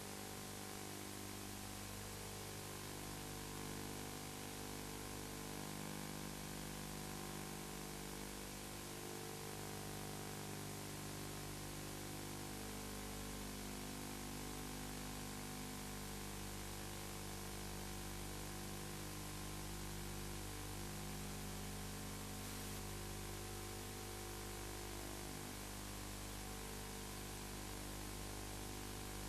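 Steady hiss and low electrical hum of an old videotape soundtrack, with no other sound standing out.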